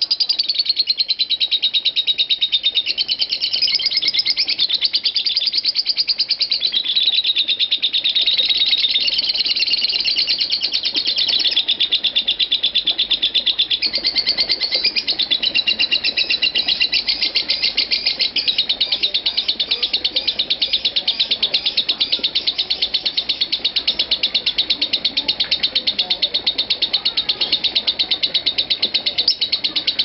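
Lovebird ngekek: an unbroken stream of very rapid, high chattering notes whose pitch sweeps up and down. This is the non-stop ngekek that Indonesian bird keepers call 'konslet'.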